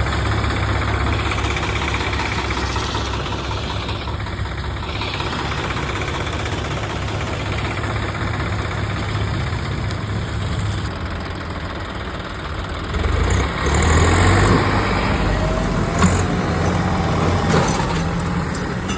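An engine running steadily with a low hum, growing louder for a couple of seconds about two-thirds of the way through.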